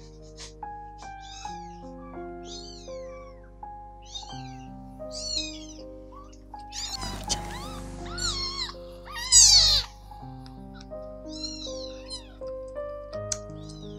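Three-week-old kittens mewing over and over in thin, high cries, each rising then falling, the loudest a little past halfway, over soft background music of held notes.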